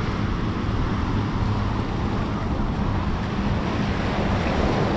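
Surf washing and breaking against the rocks of a jetty, a steady rush of water, with wind on the microphone.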